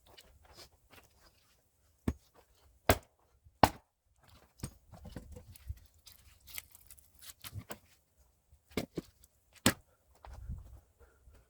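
Hand axe splitting firewood, played at double speed: about five sharp wooden knocks in two groups, the loudest about three and a half seconds in, with quieter rustling and handling knocks between.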